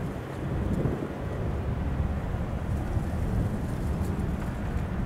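Steady low rumble, mostly wind buffeting the microphone.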